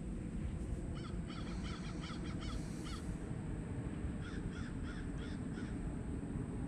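A bird calling in two quick runs of short, arched notes, about four a second, one run about a second in and another past the middle, over a steady low rumble.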